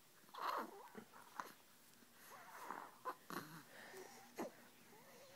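A woman making short, squeaky, wheezy funny noises to amuse a baby, several in a row with bending pitch, the loudest about half a second in.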